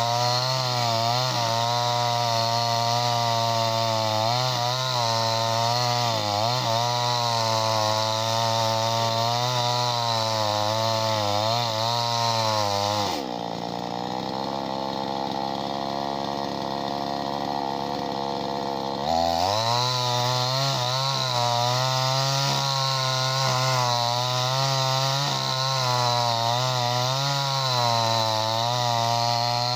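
A 58cc two-stroke chainsaw with a 20-inch bar runs at high revs while cutting, its pitch wavering under load. About 13 seconds in it eases off to a lower, steadier speed for some six seconds, then revs back up and carries on cutting.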